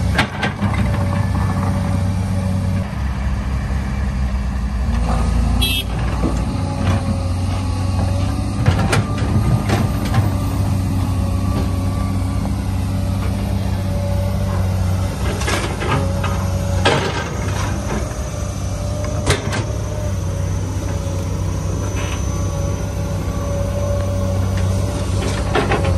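Steady low engine hum, like a truck engine running, with scattered short clicks and knocks.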